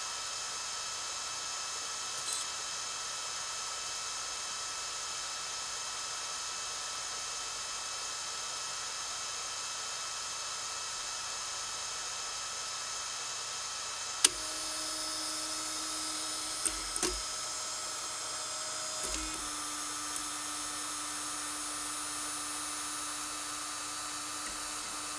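RigidBot 3D printer, fitted with an upgraded idler, running with a steady high fan whine. About halfway through there is a click, then the stepper motors drive the axes with a steady pitched whine that drops a step in pitch a few seconds later, with a few light clicks along the way.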